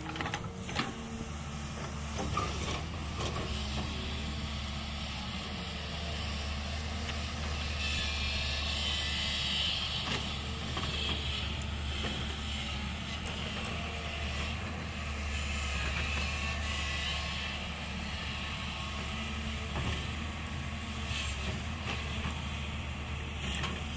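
Hyundai excavator's diesel engine running steadily, with a hiss that swells for several seconds in the middle and scattered clanks.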